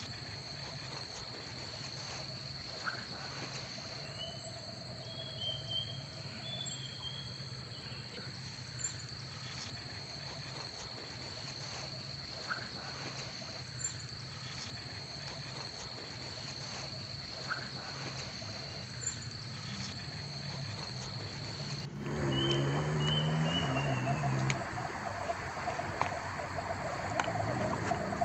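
Steady high-pitched insect trill with occasional short chirps and small clicks. About 22 seconds in, the background changes abruptly and gets louder, with low pulsing sounds added.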